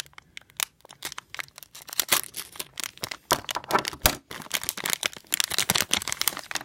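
Plastic wrapper of a small pack of baseball cards being torn open and crinkled, a dense run of irregular crackling rustles.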